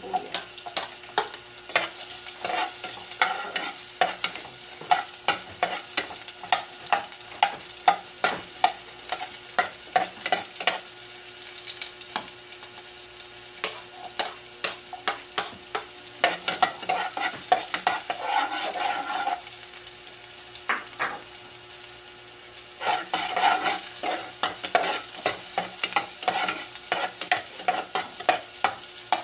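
Chopped onion and garlic sizzling and crackling in hot cooking oil in a pot, with a spoon stirring them.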